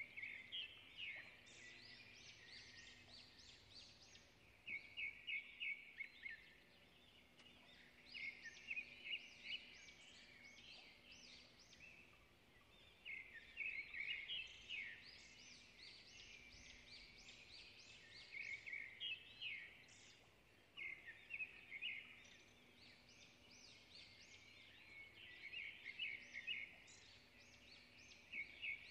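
Faint bird song: a bird singing short phrases of rapid chirps, repeated every few seconds.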